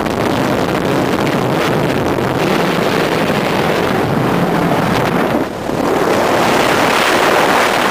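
Cessna 152's four-cylinder Lycoming engine and propeller running steadily, mixed with heavy wind rush, as the aircraft lands. The noise dips briefly about five and a half seconds in, then the rush grows louder near the end.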